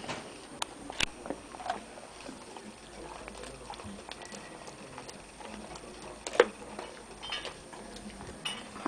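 Weimaraner chewing and crunching a roast pork hock bone: irregular wet cracks and clicks of teeth on bone and crackling, with one sharp loud crack about six and a half seconds in.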